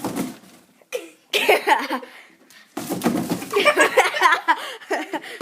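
People laughing loudly, in two long bouts, the second running about two and a half seconds.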